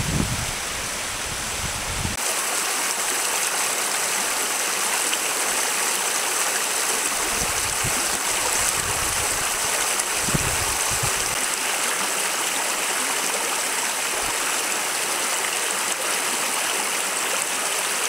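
Shallow rocky creek rushing and splashing steadily over stones in riffles, with a few brief low rumbles underneath.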